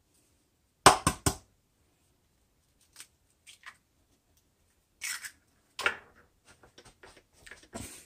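A hen's egg being cracked: a quick run of three sharp taps about a second in, then small crackles of shell as it is pulled apart over the plate, and a few more knocks and light clicks near the end.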